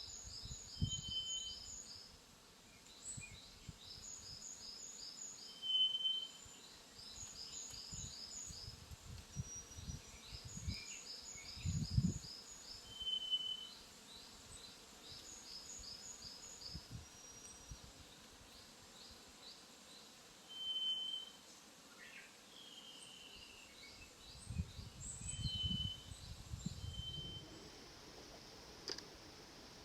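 Wild birds singing: phrases of quick high notes repeating every couple of seconds, and a single short, clear whistle every few seconds. There are low rumbles about twelve seconds in and again near the end.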